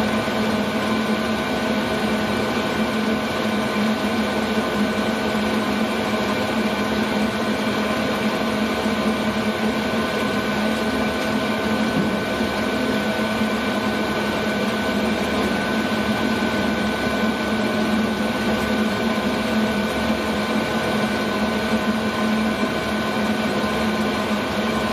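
Chinese 12-volt diesel air heater running steadily at its first start: a loud, even hum from its combustion-air blower and burner, with a steady whine on top.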